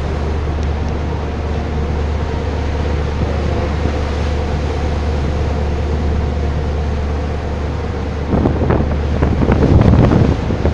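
Steady low hum of ships' engines with wind buffeting the microphone and sea water washing between two vessels lying alongside each other. The water surges louder near the end.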